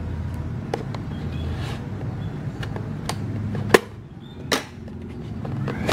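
Cardboard product box being handled and opened by hand: small scrapes and light clicks, with two sharper clicks a little under a second apart near the middle.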